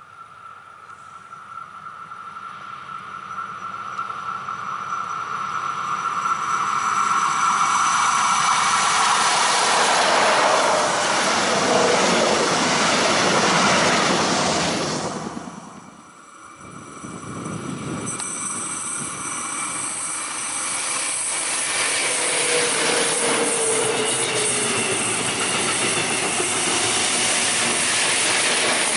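Electric passenger trains passing close on an electrified line. A double-deck regional train approaches with a steady high whine, growing louder until it runs past with rolling wheel-on-rail noise. After a brief break about halfway, a second train, hauled by an electric locomotive, passes with steady wheel noise and a slowly falling motor tone.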